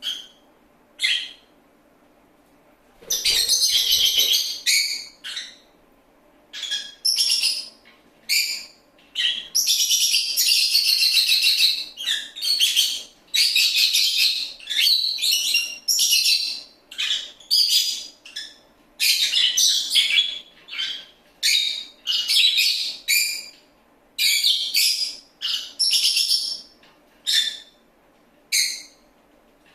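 Lovebird chirping and chattering: a long string of high-pitched calls, some single short chirps and some longer runs of a second or two, coming in quick succession.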